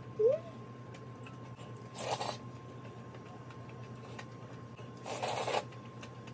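Slurping of tomato-sauced noodles from a wooden spoon, twice: about two seconds in and again about five seconds in, each under half a second. A short rising squeak just after the start is the loudest sound, over a steady low hum.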